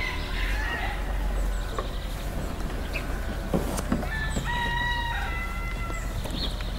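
A rooster crowing once, a single drawn-out call a little past the middle, over a steady low rumble.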